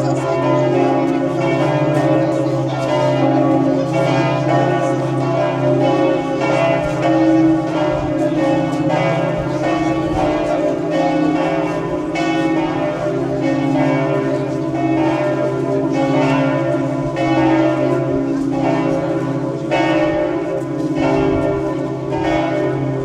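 Church bells ringing in a continuous peal, strike after strike with no pause, over a steady hum.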